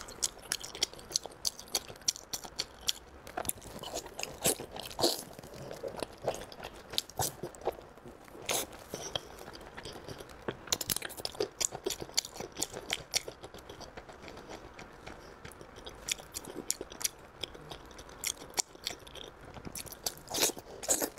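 Close-miked eating of glazed pork belly: wet chewing, biting and lip-smacking in a fast, irregular run of sharp clicks, with a few louder smacks along the way.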